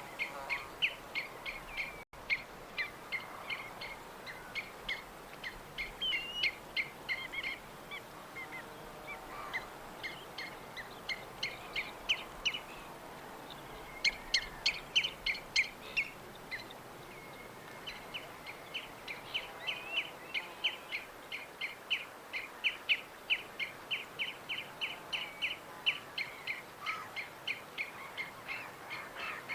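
Small birds chirping: many short, rapid chirps repeated in quick runs, over a steady background hiss, with a brief gap about two seconds in.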